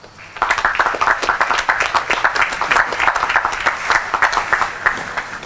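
Audience applauding: many people clapping together, starting about half a second in and dying away near the end.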